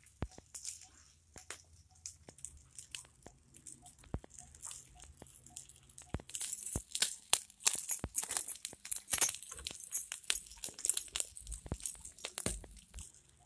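Chicken pieces sizzling on a wire mesh over an open wood fire, with the fire crackling in many sharp pops. This starts about six seconds in; before that there are only a few light taps and clicks.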